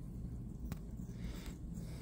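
Senegal parrot nibbling a piece of apple: faint soft crunching from its beak with a single sharp click a little under a second in, over a low steady rumble.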